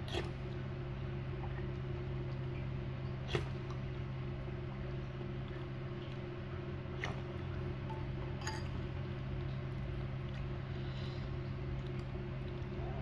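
A few short clinks of a metal fork and spoon against a ceramic bowl of noodles, the loudest a few seconds in, over a steady low hum.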